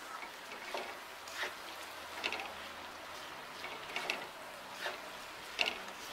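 Wooden spatula scraping and tossing rice and vegetables in a non-stick wok while they fry, in short, irregular strokes about once a second over a faint steady hiss.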